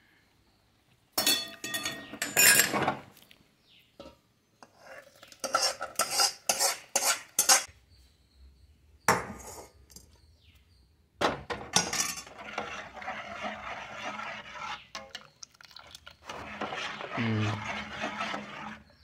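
Steel spoon and ladle clinking against stainless-steel vessels as a bowl is emptied into a pot of milk, in several short clusters of knocks. In the second half this turns into a longer stretch of steady scraping as the ladle stirs the milk in the steel pot.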